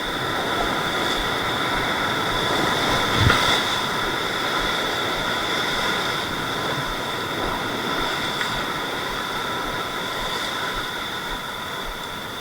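Sea surf breaking against rocks, heard as a steady rushing hiss with a brief louder surge about three seconds in.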